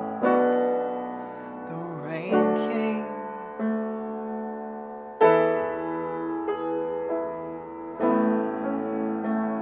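Solo piano playing slow chords: about six chords are struck one to three seconds apart, each left to ring and fade. This is the instrumental close of the song, after the vocal has ended.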